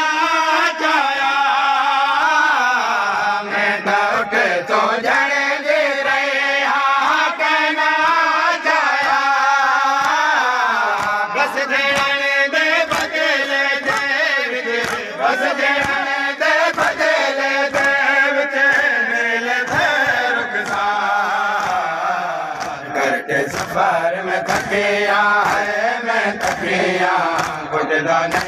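A group of men chanting a Seraiki noha, a Shia mourning lament, together in a melodic line. Regular sharp slaps of chest-beating (matam) keep time under the voices.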